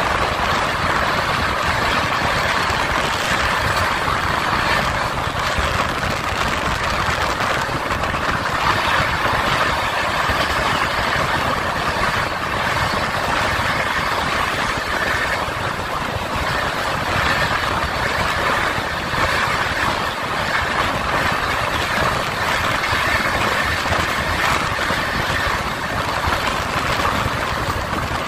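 Steady running noise of a moving express passenger train heard from an open coach doorway: wheels on the rails and rushing air, loud and even.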